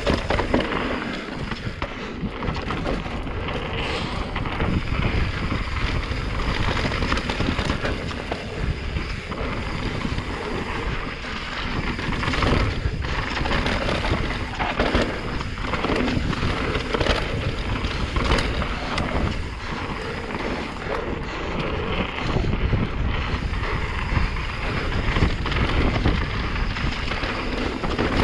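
Santa Cruz Megatower enduro mountain bike descending a rough trail at speed: steady wind buffeting the microphone over tyre noise on dirt and rock, with frequent short knocks and rattles from the bike.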